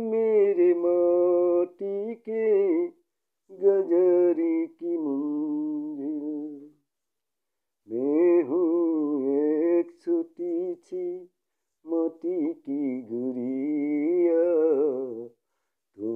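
A man singing a slow Hindi film song, holding long wavering notes, with short breathing pauses between phrases about three, seven and eleven seconds in.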